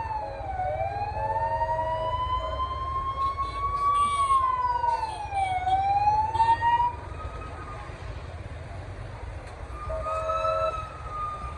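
Emergency vehicle siren wailing in slow rising and falling sweeps, stopping about seven seconds in. Steady street traffic rumbles underneath, with a few short horn blasts.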